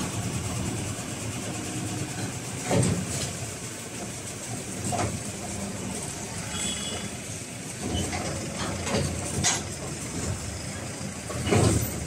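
An engine idling steadily, with a few sharp knocks and clanks of loads being handled in a truck's metal bed, the loudest near the end.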